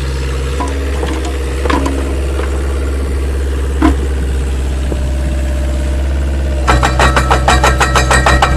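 Four-cylinder diesel engine of a Terex HR14 mini excavator running steadily, with a few single clanks from the working boom and bucket. About two-thirds of the way in, the steel tracks start moving and set up a fast rhythmic clatter of about five or six strikes a second over the engine.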